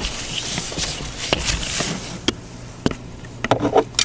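Handling noise: scattered light clicks and taps with bits of rustling, growing busier near the end.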